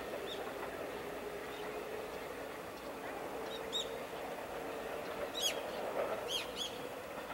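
Several short bird chirps, clustered between about four and seven seconds in, over the steady hum of a JR 211 series electric train coming slowly closer.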